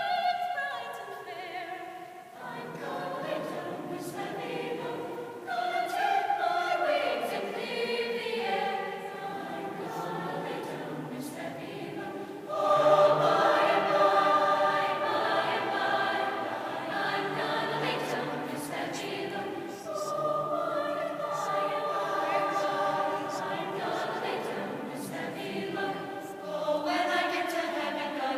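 High school symphonic choir singing sustained chords. It dips briefly about two seconds in, then swells to its loudest about twelve seconds in.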